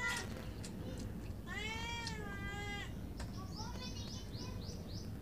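A cat meowing: a short meow at the start, a long drawn-out meow whose pitch rises and falls about two seconds in, then a quick run of short, high, falling chirps near the end.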